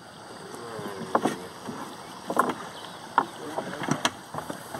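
Wooden boat moving through the water, with sharp knocks and splashes of strokes about once a second over a steady hiss of wind and water.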